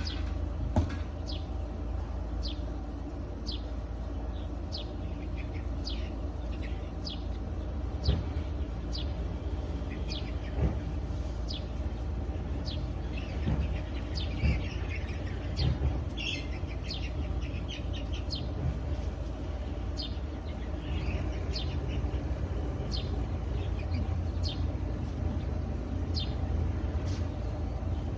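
A bird chirping over and over: short, high notes that each slide downward, coming in quick succession with a busier flurry about halfway through, over a steady low rumble.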